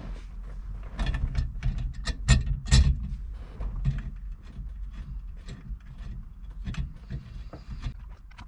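Small steering-wheel bolts being run into the hub with a 3 mm T-handle hex key: a quick, irregular run of metal clicks and ticks, busiest in the first few seconds.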